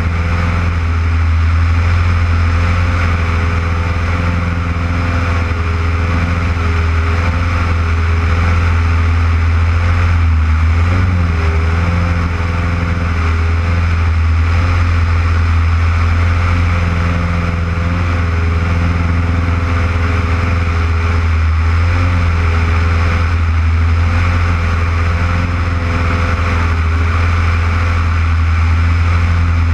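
Lycoming piston engine and propeller of an aerobatic monoplane running steadily in flight, a loud deep drone with rushing airflow over the wing, the pitch shifting slightly now and then.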